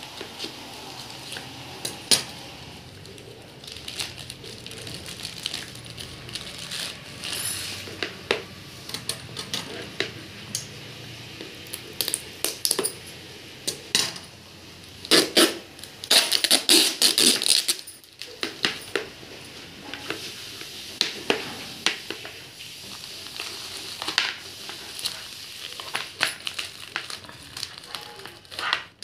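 Plastic packaging handled and cut open with scissors: a courier mailer and a bubble-wrapped plastic box rustle and crinkle, with many sharp clicks and snips. The loudest stretch is a dense crinkling about fifteen to seventeen seconds in.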